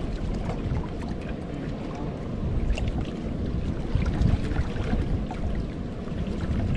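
Wind buffeting the microphone in a gusting low rumble, over water lapping at the rocky shoreline.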